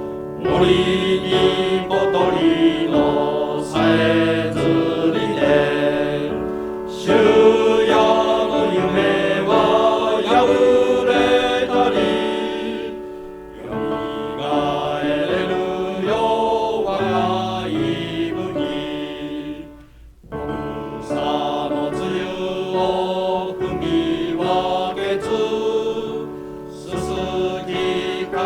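Group of voices singing a Japanese old higher-school dormitory song (ryōka), with two short pauses between phrases.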